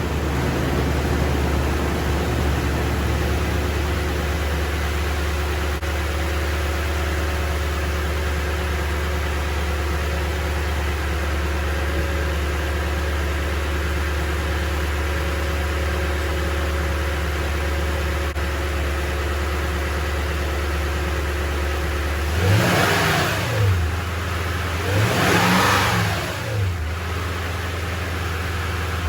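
Toyota Tundra's 5.7-litre i-Force V8 idling steadily, running smoothly after a fresh PCV valve replacement. Near the end the throttle is blipped twice, about three seconds apart, each rev rising and falling back to idle.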